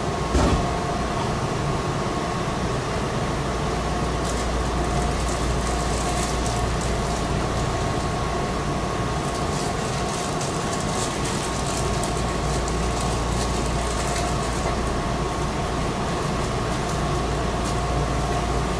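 Steady hum of a stationary Meitetsu 6000 series electric train's on-board equipment and air conditioning, with two steady whining tones over a low drone. There is a short click just after the start.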